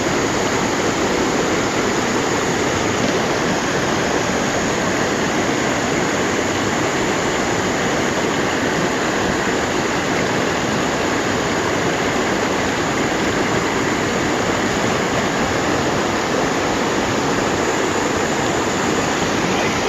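Mountain valley stream rushing water, a steady, unbroken rush.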